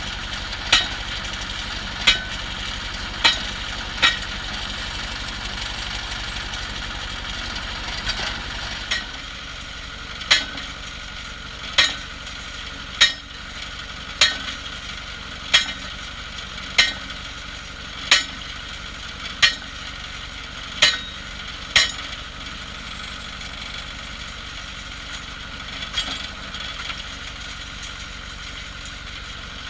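Cable percussion drilling rig's engine running steadily, with sharp metallic clanks about every 1.3 seconds as the drilling tool is repeatedly lifted and dropped. The strokes stop for several seconds early on, resume for about a dozen more, then stop again near the end.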